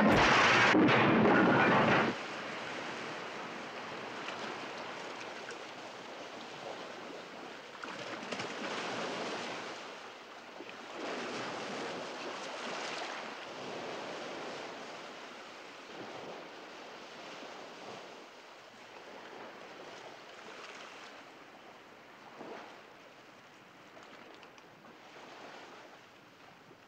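A car crashing onto rocks after going off a cliff: a loud, clattering crash for about two seconds that cuts off sharply. Then surf washes against a rocky shore, the waves swelling and falling and slowly fading.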